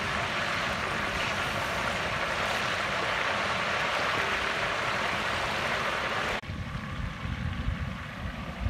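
Small whole brinjals deep-frying in hot groundnut oil, the oil sizzling with a dense, steady hiss. The sizzle stops abruptly about six seconds in, leaving a quieter low rumble.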